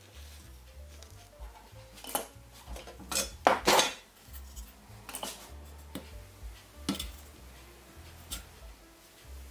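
A brass-and-copper carriage lamp body being handled, clanking and clinking against its wooden stand and tools in a handful of sharp knocks, the loudest cluster about three and a half seconds in.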